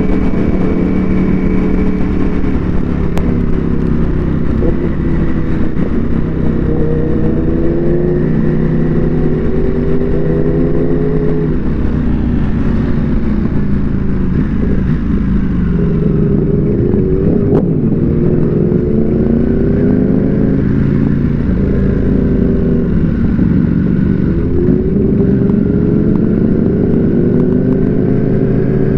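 Ducati Panigale V4 superbike with a Termignoni exhaust on the move, its V4 engine note climbing and dropping again several times as the bike accelerates and eases off, with a steady low rumble underneath.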